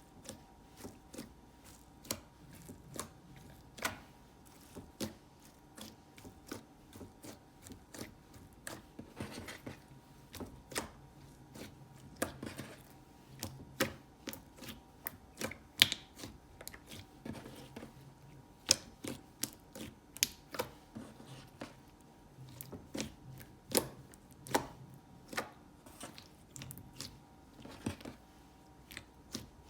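Slime being worked and squeezed, giving sharp irregular clicks and pops, roughly one or two a second.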